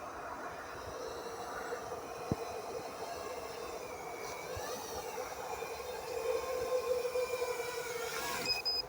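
iFlight Nazgul Eco 5-inch FPV quadcopter's brushless motors and propellers whining in flight. The pitch dips and rises with the throttle about four to five seconds in, and it grows louder in the last few seconds. A short high beep sounds near the end.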